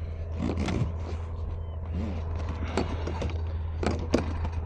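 Irregular scrapes and knocks of gear being handled on a plastic kayak deck, with a sharper knock about four seconds in, over a steady low rumble.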